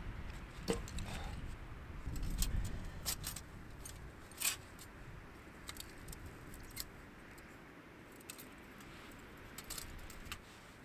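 A backpack is set down with a knock and rustle, then the thin metal panels of a small folding camp stove clink and click irregularly as it is taken from its pouch and unfolded.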